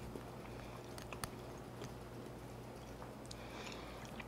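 Faint chewing of a mouthful of layered trifle (pound cake, whipped cream and berries), with a few soft clicks and a steady low hum underneath.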